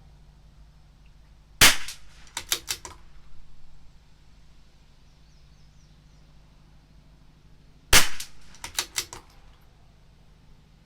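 Two shots from a CZ 457 LRP bolt-action .22 LR rifle firing SK Semi Auto rimfire ammunition, about six seconds apart. Each shot is followed within a second by a quick run of sharp clicks as the bolt is cycled.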